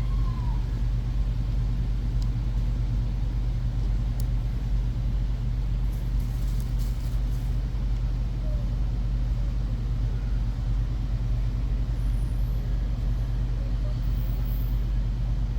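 A steady low mechanical hum throughout, with a few faint light clicks.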